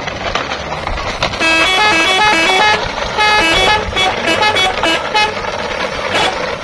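A multi-tone vehicle horn tooting a quick tune of stepping notes over a steady rumbling noise. The tune starts about a second and a half in and comes in several short phrases with brief gaps.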